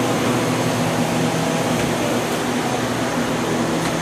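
Steady machine hum: an even rush of noise over a low, unchanging drone.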